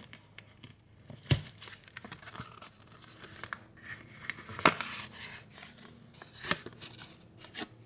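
Scissors cutting into cardboard: irregular sharp snips with scraping, crinkling noise between them.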